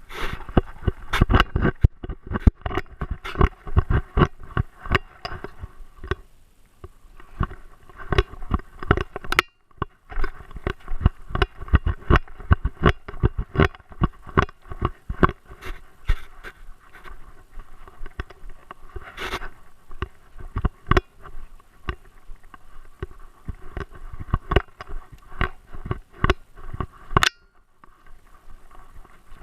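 Rapid, irregular knocks and scrapes picked up by a GoPro camera worn on a Great Dane as the dog moves, several a second, with short breaks about ten seconds in and near the end.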